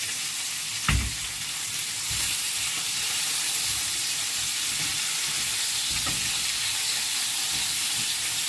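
Chicken wings sizzling steadily as they fry in a pan. There is a sharp knock about a second in and a fainter one about six seconds in, like a utensil against the pan.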